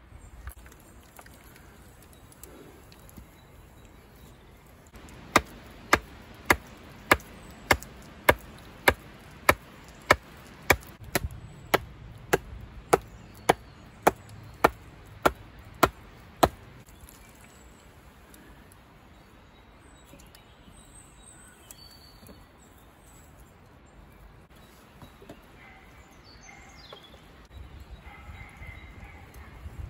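About twenty sharp, evenly spaced strikes of a tool on wood, roughly two a second, starting about five seconds in and stopping about eleven seconds later.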